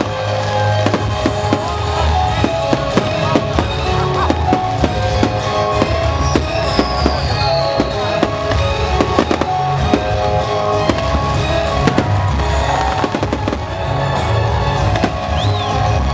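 Fireworks bursting and crackling in quick succession, many sharp bangs close together, with music playing alongside.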